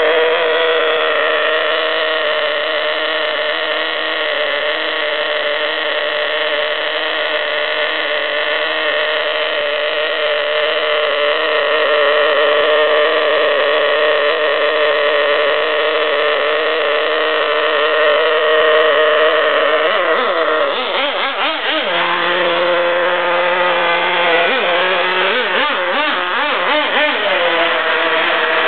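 Small nitro glow engine of a 1/16-scale RC car running with a steady high buzz, then revving up and down rapidly from about twenty seconds in.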